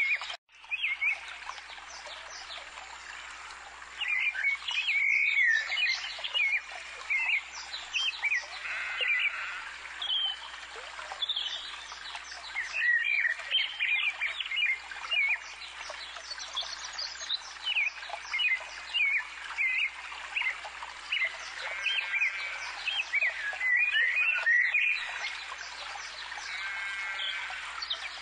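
Songbirds chirping and singing, many short, quick calls over a steady background hiss, with a brief cut-out just after the start.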